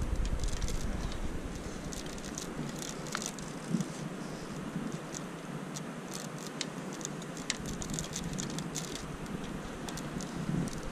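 Irregular light clicks, taps and rustles of a climber working down a tall ship's rigging: prosthetic feet, shoes and hands on the ratlines and wire shrouds, over a steady hiss of wind.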